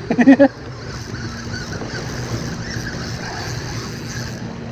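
A brief loud voice-like call at the very start, then the steady drone of a passing powerboat's engine over the wash of its wake on the water around the kayak.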